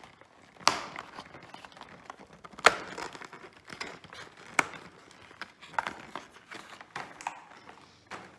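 Cardboard advent calendar door being pried and torn open by hand: irregular crinkling and tearing, with sharp cracks about a second in, near three seconds and near five seconds.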